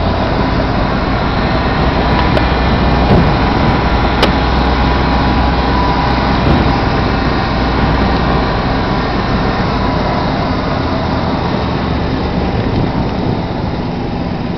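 Truck engine running and the cab rumbling as it drives over rough, rocky off-road ground, heard from inside the cab. A few short knocks from bumps, the sharpest about four seconds in.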